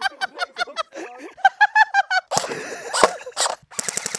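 Electric airsoft rifle firing short full-auto bursts, rapid clicks at about ten shots a second over the whine of its motor and gearbox.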